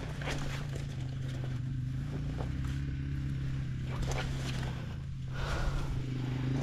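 Small dirt bike engine idling steadily, with irregular clacks and knocks over the hum.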